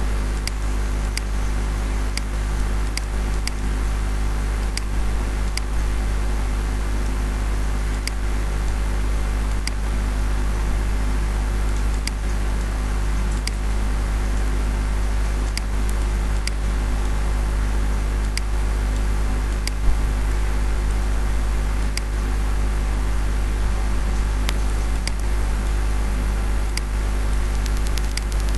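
Computer mouse clicking sharply about once a second, typical of placing anchor points with the pen tool while tracing a clipping path, over a steady loud low electrical hum and hiss.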